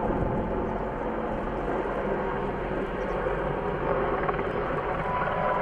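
Mil Mi-26 heavy-lift helicopter in flight: a steady, dense rotor and turbine din with a low drone running underneath.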